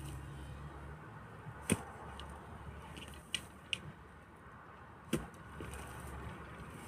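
Pickaxe blows biting into hard-packed soil: two heavy strikes about three and a half seconds apart, with a couple of lighter clicks between them.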